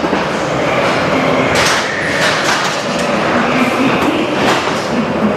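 Spinning ghost-train car rolling along its track: a steady loud rumble and rattle, with a few sharp knocks along the way.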